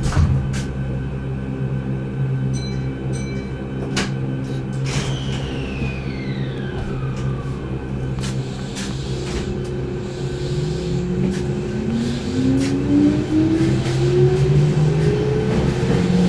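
Keihan 8000-series electric train's DC traction motors starting to whine and rising steadily in pitch as the train pulls away, over a steady hum with scattered clicks. Earlier there are two short high beeps and a separate whine that falls in pitch.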